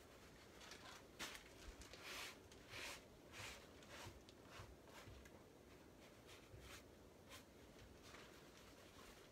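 Faint, quick swishing strokes of paint being worked onto a canvas: a dozen or so short strokes, some about half a second apart, dying away after about seven seconds.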